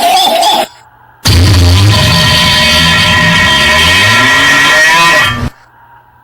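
A short, loud clip of rock music with guitar, about four seconds long, played as a meme sound effect and cut off abruptly. It follows the cut-off end of a previous effect.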